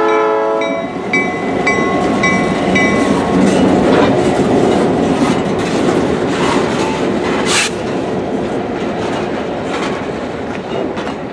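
Freight train passing: the locomotive horn cuts off about a second in and its bell rings for the first few seconds, then two loaded gypsum cars roll by with wheels clacking and clanking over the rail, the noise easing slightly near the end.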